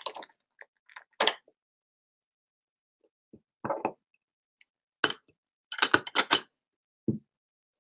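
Clear acrylic stamp block clicking and tapping as it is handled: separate light clicks, then several quick taps on an ink pad about six seconds in.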